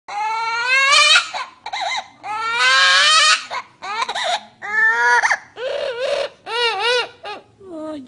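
Amazon parrot mimicking a baby crying: a run of about six loud wailing cries with short breaks between them. The first cries rise in pitch and the last ones waver up and down.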